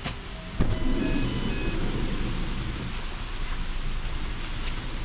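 Car cabin noise in the rain: a sharp clunk about half a second in, a short electronic beep from the car just after, then the steady low rumble of the car with rain noise.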